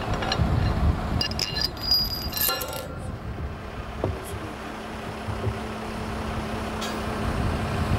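A mobile crane's engine running with a low rumble. A quick run of bright, ringing metal clinks comes between about one and three seconds in, and a steady low hum sets in about halfway through.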